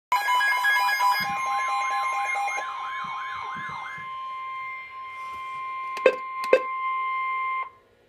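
NOAA weather alert radios sounding for an incoming flood warning. A steady 1050 Hz warning tone plays with a warbling siren sweep that stops about halfway through and fast high beeping that stops earlier. Two sharp clicks come near the end, and the steady tone then cuts off suddenly.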